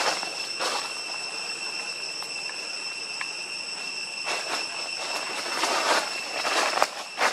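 Footsteps crunching and rustling through dry leaf litter, an uneven series of swells that is loudest around six seconds in and again near the end, over a steady high-pitched insect drone.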